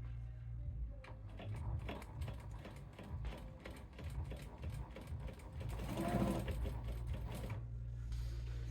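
Sewing machine stitching: a fast run of needle clicks from about a second in, stopping about a second before the end, over a steady low hum.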